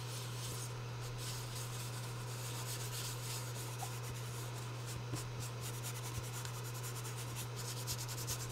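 Ink blending tool's foam pad rubbed in short scratchy strokes over a paper tag, the strokes coming faster and thicker in the second half. A steady low hum runs underneath.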